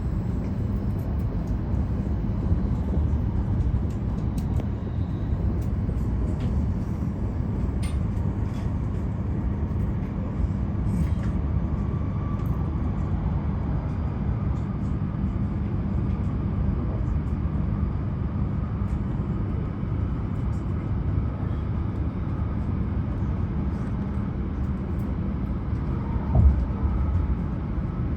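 Tohoku Shinkansen running noise heard inside the passenger cabin: a steady low rumble with a few faint clicks, as the train approaches its station stop. A brief thump comes near the end.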